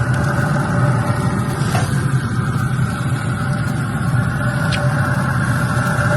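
A steady, loud mechanical hum, like a motor running at an even speed, with a few faint clicks.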